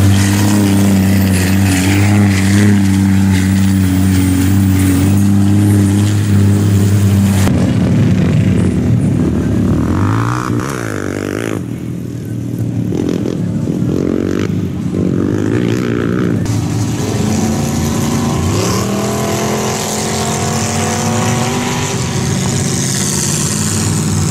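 Big mud-truck engines running hard in deep muddy water: a lifted pickup's engine pulls steadily for the first several seconds, then the sound changes abruptly to a quieter stretch, and later an engine revs up, rising in pitch twice.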